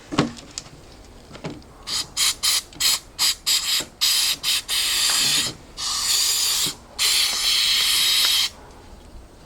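Aerosol can of Zep Quick Melt windshield and lock de-icer spraying into a frozen padlock's keyway. There is a click near the start, then about eight quick short spurts, then three longer hissing sprays of one to one and a half seconds each.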